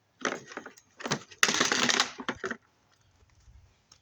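Parts of a small dishwasher motor being worked and pulled apart by hand: a run of clicks and knocks, then a harsh crunching scrape for about half a second near the middle, and a few more clicks.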